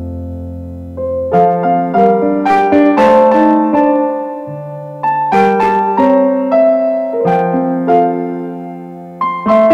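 Gentle piano music: a slow melody over held chords, with new phrases coming in about a second in and again about five seconds in.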